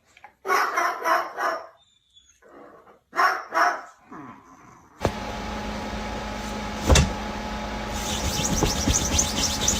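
A pet animal's loud pitched calls in two short bursts. These are followed by a steady background of room noise with a low hum and a single knock.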